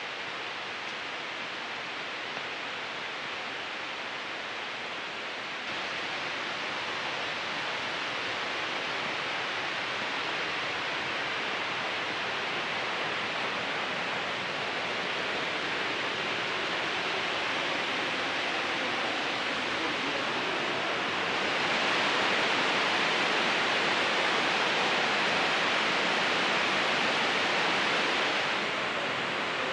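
Steady rushing hiss of a waterfall's falling water. It gets louder about six seconds in, louder again from about 21 seconds in, and eases off near the end.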